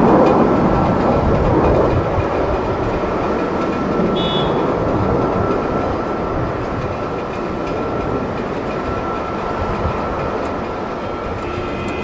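Twin jet engines of a Boeing 737-800 airliner at takeoff thrust: a steady roar with a thin whine running through it, loudest at the start and slowly fading as the aircraft climbs away.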